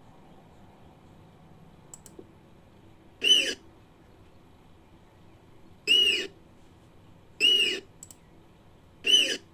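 Malayan tapir calls: four short, high squealing whistles, each falling in pitch, spaced a second or two apart. Faint clicks come twice between them.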